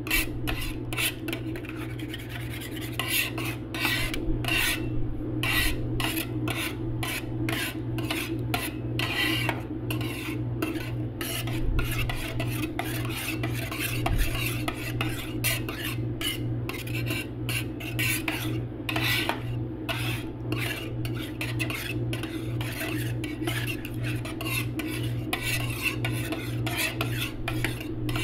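Two steel spatulas scraping, chopping and tapping against a stainless steel ice-cream-roll cold plate as they work a freezing liquid mixture, in quick, irregular strokes, over a steady low hum.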